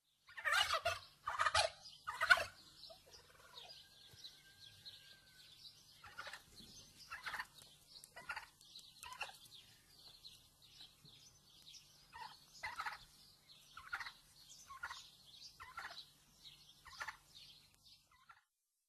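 Turkeys gobbling: three loud rattling gobbles in quick succession, then a long run of quieter, shorter calls about once a second.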